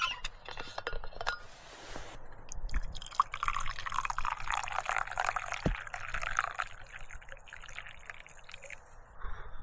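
Water poured into a cup to make tea, with a dense splashing stream lasting about three and a half seconds after a few light clicks.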